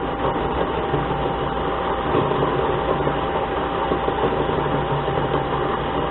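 Harbor Freight mini lathe running steadily with its spindle turning a workpiece in the chuck while the tool takes a light cut, a steady whine from the motor and gearing running over the noise of the cut.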